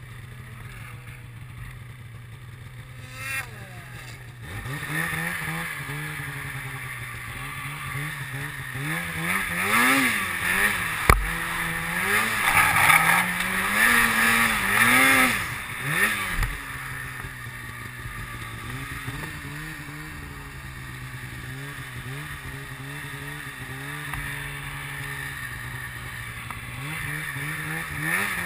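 Snowmobile engine running at a low steady speed, then revving up about four seconds in. Its pitch rises and falls repeatedly with the throttle while the sled climbs a snowy hill, with one sharp knock in the middle. It then settles to a steadier, quieter run and picks up again near the end.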